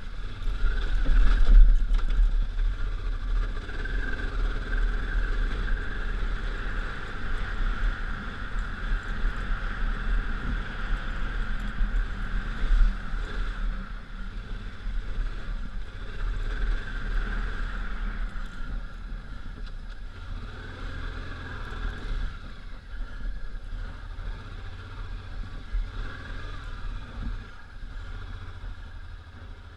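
1999 Honda Africa Twin's 750 cc V-twin engine running as the motorcycle rides a trail, heard from an on-bike action camera with heavy low rumble. It is loudest in the first few seconds and eases somewhat in the second half.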